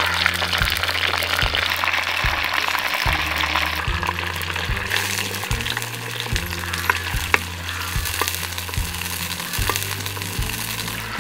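Food sizzling and frying in a pan while being stirred, with a few sharp clicks in the second half. Background music with a steady bass line plays underneath.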